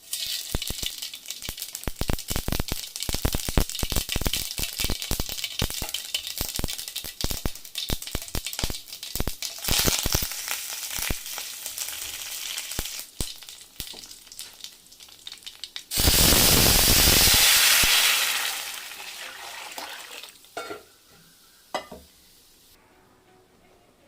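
Tempering for rasam frying in hot oil: many sharp crackles and pops that thin into a steady sizzle. About sixteen seconds in, a loud sizzling rush lasts about two seconds, then dies away to a few faint clicks.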